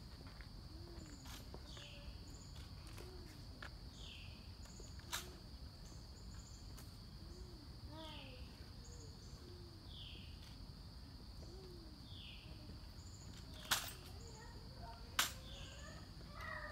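Outdoor ambience of a steady insect drone and birds calling again and again, broken by three sharp clicks, about five, fourteen and fifteen seconds in, from an M14 rifle being handled during a rifle inspection.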